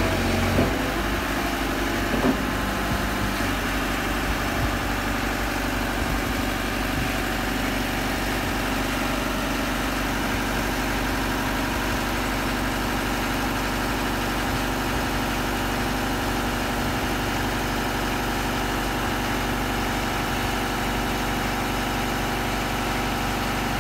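Boom lift's engine running steadily at a constant pitch, without revving.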